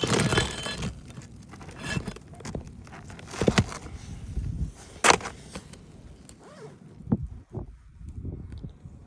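Asphalt roof shingles being handled and scraped on the roof, with a scraping rustle at the start and a couple of sharp knocks about three and a half and five seconds in.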